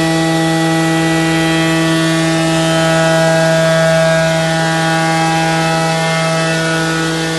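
CNC router running with a steady whine, its level swelling slightly about halfway through.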